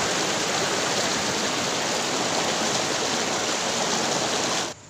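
Shallow stream rushing loudly over rocks, a steady water noise that cuts off abruptly near the end.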